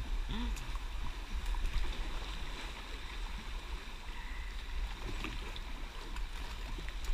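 Swollen floodwater in a creek rushing past a plastic kayak as it is carried along, a steady wash of moving water with a low rumble underneath.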